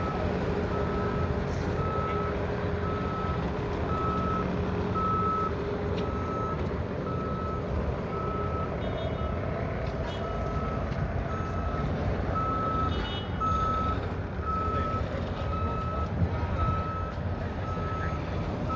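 Vehicle reversing alarm beeping steadily at one pitch, evenly spaced, over the low rumble of an engine running.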